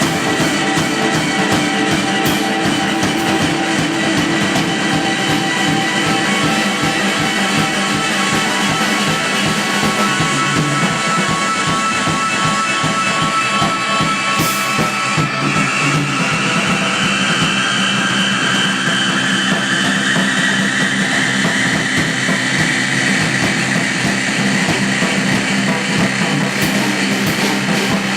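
Live band playing, with drum kit and guitar, steady and loud; a tone rises slowly through the middle.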